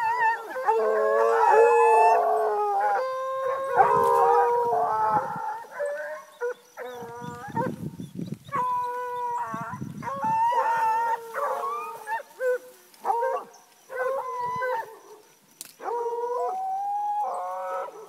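Dogs howling and baying, several voices overlapping at first, then separate short howls and yelps with gaps between them.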